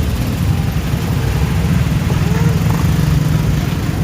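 Large bus engine running with a loud, steady low rumble; no horn melody is sounding.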